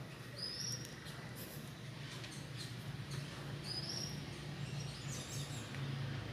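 A kitten playing with a small toy on a tile floor: light taps and scuffs, with two short high-pitched squeaks about three seconds apart over a steady low hum.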